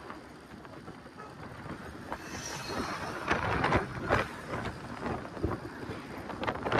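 Wind buffeting the microphone over the road noise of a moving car, in irregular gusts that grow louder about two seconds in.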